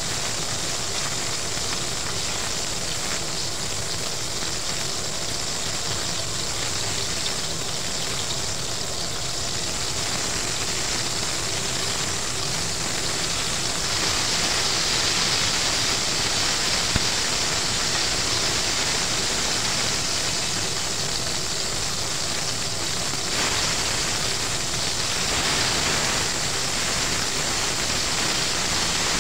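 Battered chicken pieces frying in hot oil in a pot: a steady sizzle that grows a little louder about halfway through as metal tongs turn the pieces, with one light tap of the tongs soon after.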